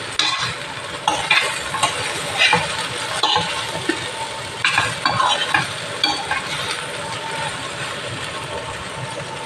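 Chopped okra frying in a stainless-steel pan over a steady sizzle. A metal spoon stirs and scrapes against the pan in about a dozen quick strokes over the first six seconds, then leaves only the sizzle.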